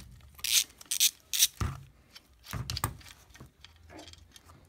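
Socket ratchet clicking in several short rasping bursts while a 10 mm bolt, the cam chain tensioner bolt on a 125 cc ATV engine, is loosened; quieter handling noise follows in the last second or two.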